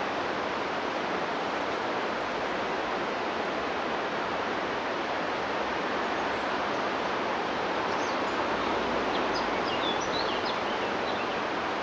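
Steady rushing of a mountain river, with a few short bird chirps about eight seconds in.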